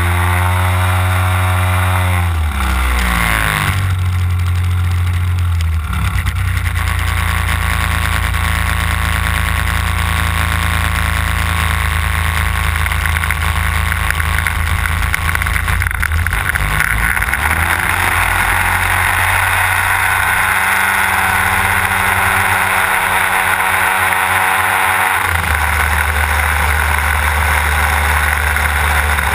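Desert Aircraft DA-150 twin-cylinder two-stroke petrol engine of a large-scale RC aerobatic plane, heard close up from on board. It runs loudly, with the pitch shifting a couple of seconds in. About halfway through it revs up into a rising whine as the plane takes off, and the throttle changes again near the end.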